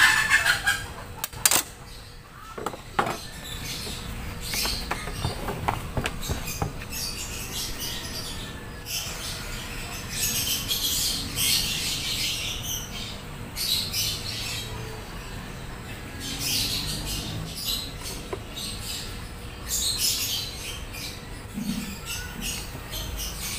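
Bristles of a small glue brush scratching over plywood in uneven strokes as wood glue is spread along the sled's runner strips, with a few sharp clicks in the first seconds.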